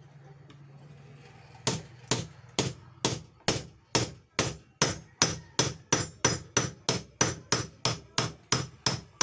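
Hammer striking a metal pipe held over the end of a cut-off saw's armature shaft: a steady series of sharp metallic blows, about two a second, starting a little under two seconds in.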